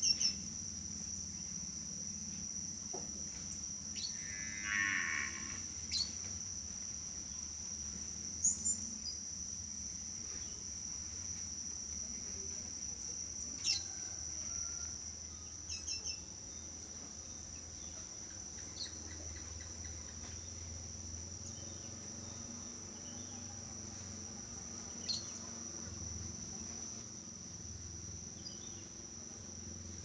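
Steady high-pitched insect trilling that runs on without a break, with a few short sharp clicks and one brief call about four to five seconds in.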